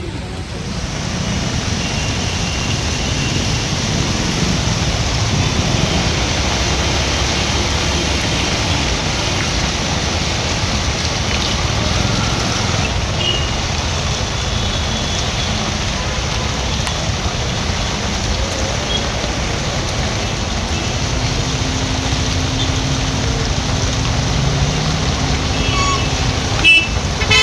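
City road traffic on rain-soaked, waterlogged streets: vehicle engines and tyres running through water make a steady noise. A steadier engine drone comes in for the last few seconds, and short horn toots sound right at the end.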